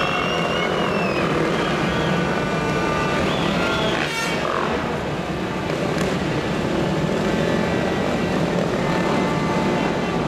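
Several motocross bike engines running together, idling with revs rising and falling now and then. A sharp knock about four seconds in.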